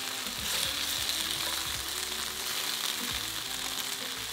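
Flour-coated diced chicken breast sizzling as it browns in hot oil in a pan, a steady frying hiss that grows louder about half a second in.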